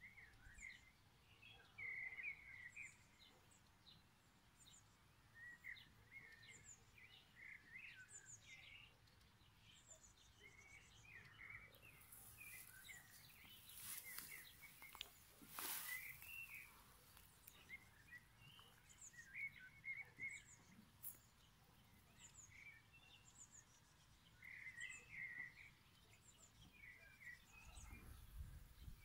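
Faint outdoor ambience of several birds chirping in short, scattered calls, with a few seconds of rustling hiss about midway.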